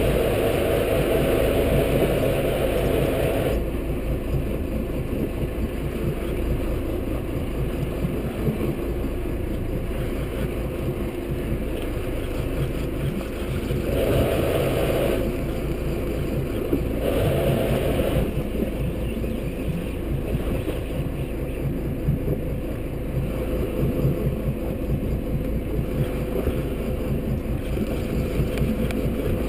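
A panga's outboard motor running steadily, swelling louder for a few seconds near the start and twice more around the middle.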